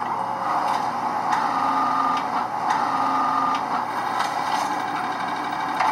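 Office photocopier running a copy job after its Start button is pressed: a steady mechanical whir with light clicks, and two held whines about a second long each.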